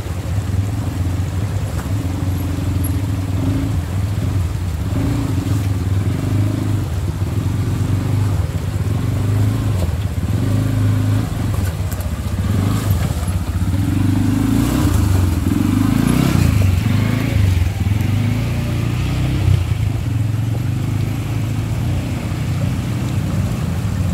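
CFMoto CForce ATV engine running steadily, its pitch wavering and rising for a few seconds around the middle.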